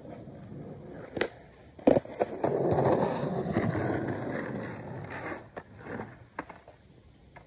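Skateboard: a sharp clack, then a louder slap of the board about two seconds in, followed by the wheels rolling for a few seconds and fading, with a few more clacks near the end.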